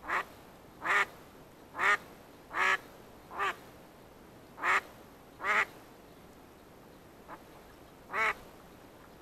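Live decoy hen duck quacking in a series of single, separate quacks about a second apart, nine in all, one of them faint. This is a tethered hen calling out to draw in wild mallard drakes.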